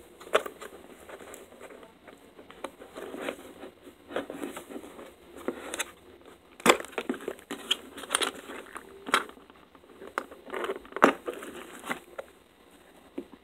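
Small hard plastic waterproof case handled and its latch worked open: irregular plastic knocks, rubbing and rattling, with a few sharp clicks standing out.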